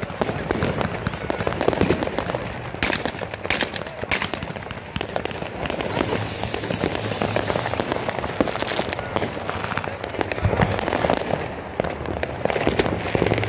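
Many fireworks and firecrackers going off at once: a dense, continuous crackle of bangs and pops, with a few louder bangs about three to four seconds in.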